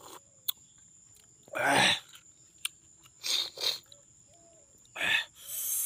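A person slurping and sucking in five short, loud bursts while eating cooked snails and sipping their broth.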